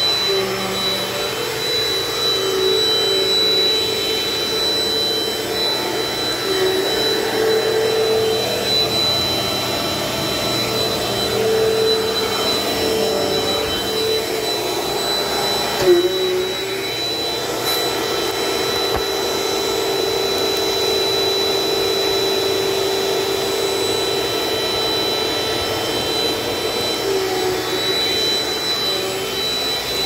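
Dirt Devil Dynamite upright vacuum cleaner running steadily on carpet, its motor whine wavering slightly in pitch as it is pushed back and forth. A single knock about halfway through.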